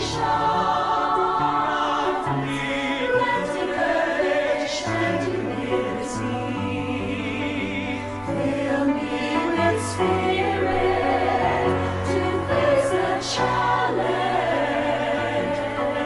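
A choir singing a slow prayer song over instrumental accompaniment, with long held notes and held bass notes underneath.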